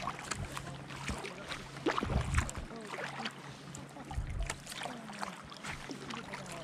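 Sea kayak paddling: paddle blades splashing and dripping water in irregular strokes, with water lapping at the kayak's hull and a couple of low thuds.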